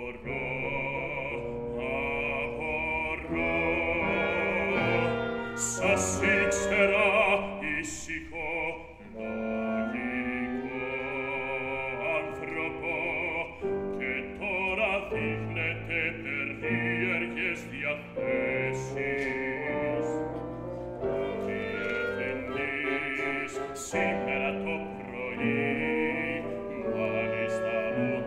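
Chamber opera performed live: operatic singing over a small ensemble of clarinet, oboe, bassoon and piano, without a break.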